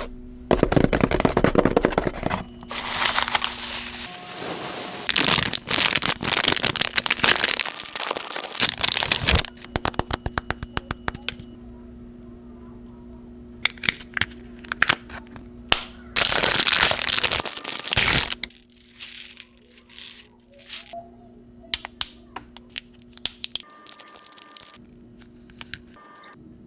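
Packaging being unwrapped by hand: long bursts of crinkling and tearing wrapping, with scattered clicks and taps between them, over a steady faint low hum.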